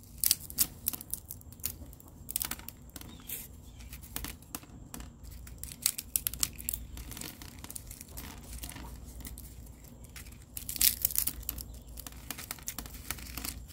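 Dry okra seed pod being pulled apart by hand: the papery husk crackles and tears along its seams, in bursts of small sharp clicks. Seeds drop out onto a hard plastic lid.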